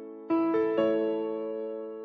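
Background music: soft piano or electric piano notes, each struck and left to fade, with new chords about a third of a second and under a second in.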